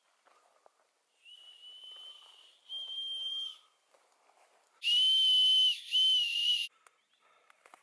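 Emergency whistle built into a backpack's sternum-strap buckle, blown as a signal. It gives four high-pitched blasts that grow louder, the last two long and almost run together.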